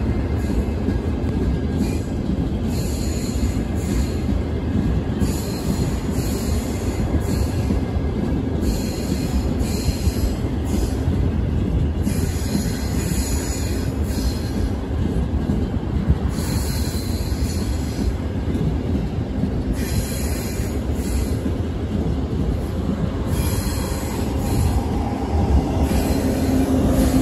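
Train running on the rails with a steady low rumble. A high hiss or screech swells and fades every few seconds, and a low hum rises near the end.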